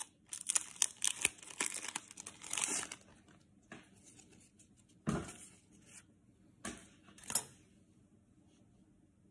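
Foil trading-card pack wrapper torn open and crinkled by hand, a quick run of crackling rips over the first three seconds. A single thump about five seconds in, and two short crinkles follow.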